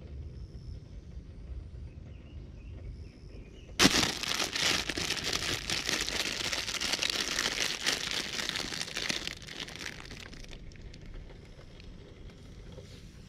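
Plastic noodle packet crinkling as it is handled and opened. It starts suddenly about four seconds in, goes on for about six seconds, then dies down.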